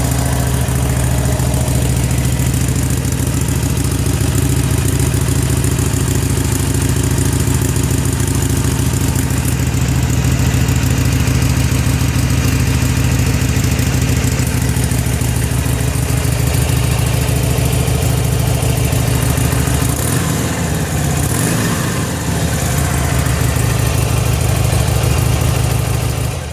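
Harley-Davidson Iron 883's air-cooled V-twin idling steadily through its exhaust. The pitch wavers briefly about twenty seconds in.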